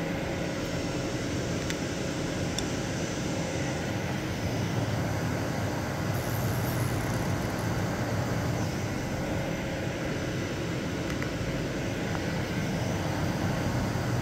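CNC lathe running with its spindle and chuck turning at about 500 rpm, giving a steady mechanical hum and whir.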